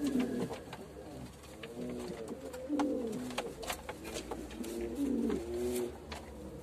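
Domestic pigeons cooing: a series of low, rolling coos that come every second or two, with scattered sharp clicks and knocks throughout.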